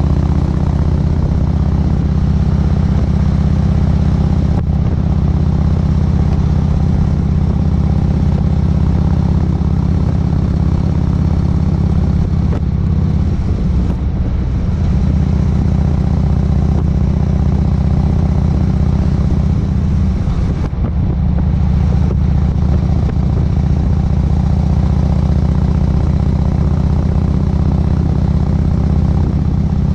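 Cruiser motorcycle's engine running steadily at highway speed, with the rush of wind and road noise. The steady engine note breaks briefly twice, about halfway through and again about two-thirds of the way in.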